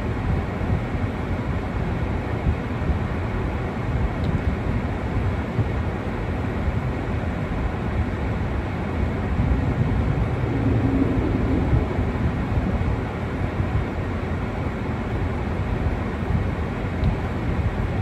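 Steady low rumble inside a car's cabin while it sits stopped, engine idling, with a slightly louder stretch and a faint hum about ten to twelve seconds in.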